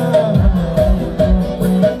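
Live amplified band music from a concert stage: a steady, heavy kick-drum beat that comes in about half a second in, with sliding bass notes and a repeating melodic line.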